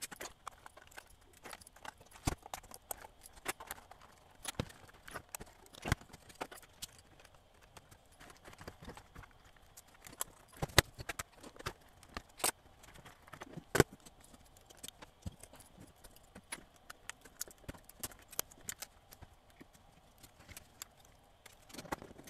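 Irregular light clicks and knocks of plastic and metal parts being handled as a Sony CCD-FX425 8mm camcorder is taken apart on a hard bench, with a few sharper clicks around the middle.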